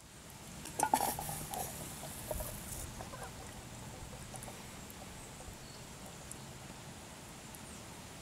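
Canned baked beans being poured from a tin can into a steel camp pot, with a few light knocks about a second in, then a faint steady background with occasional small ticks.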